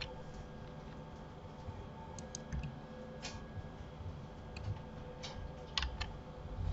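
Quiet computer mouse and keyboard clicks while working in 3D software: about ten light clicks at irregular intervals, bunched around two seconds in and again near the end, over a faint steady hum.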